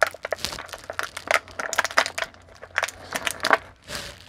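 Thin clear plastic packaging crinkling and crackling in irregular bursts as it is handled and an action figure is pulled free of it.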